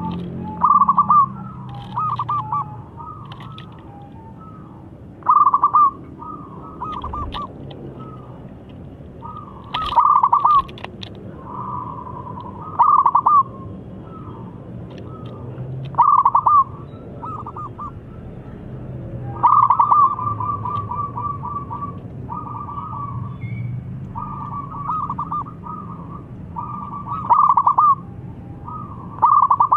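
Zebra dove (perkutut) singing its cooing song, short phrases of fast staccato coo notes repeated every few seconds. It is a calling song that draws rival doves to answer.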